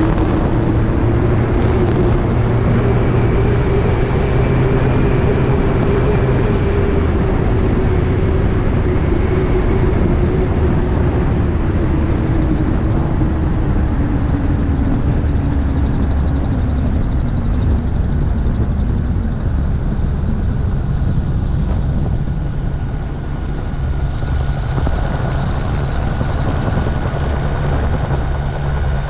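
Gyroplane's engine and pusher propeller running loud over rushing air. The engine note falls steadily from about a third of the way in as power is taken off, then runs on at the lower setting.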